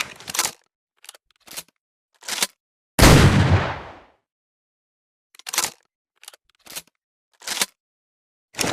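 Double-barrel shotgun sound effect: a few short sharp clicks of the gun's action, then one shot about three seconds in whose boom dies away over about a second, followed by another run of clicks.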